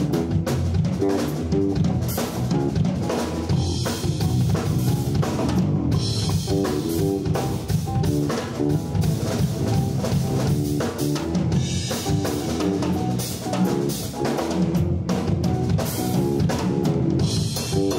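Live jazz combo playing, led by a busy drum kit: snare, rimshots, bass drum and cymbals, over a repeating electric bass line.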